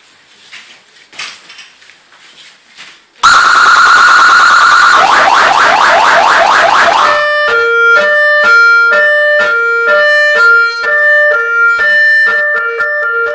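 Remote-controlled electronic police siren sounding loudly. After a few faint clicks, it starts suddenly about three seconds in with a fast warble, changes to rapid rising yelps, then steps back and forth between tones about twice a second.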